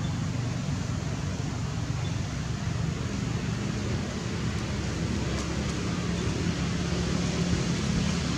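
Steady outdoor background noise with a low rumble, and no clear animal calls.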